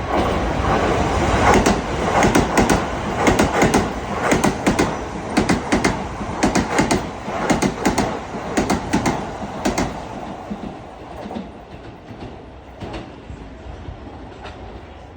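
Keisei 3000 series electric train running through a station at speed without stopping, its wheels clacking over the rail joints in quick clusters of clicks. The sound fades away over the last few seconds as the train recedes.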